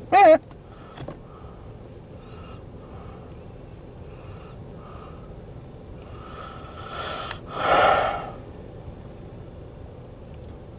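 A person breathing close to the microphone: soft, even breaths, then a heavy two-part sigh about seven seconds in, the second part louder. A brief vocal sound right at the start.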